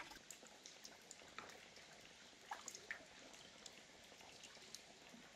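Faint trickling and dripping of water in a rocky stream pool, with scattered small drips.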